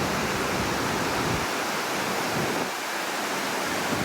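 Waterfall rushing steadily, a dense even roar of falling water. A low rumble under it drops away about a second and a half in.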